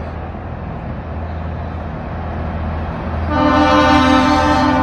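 A truck engine running with a steady low rumble, then a loud, sustained horn blast starting about three seconds in.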